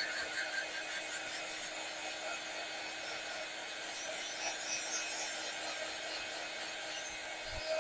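Craft heat tool blowing hot air steadily over stamped card stock, a constant rush of air with a steady hum beneath it, drying the freshly coloured image.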